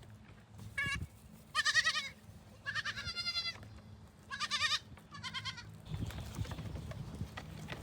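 Goats bleating: five short, high, wavering bleats in the first six seconds, then low scuffling noises.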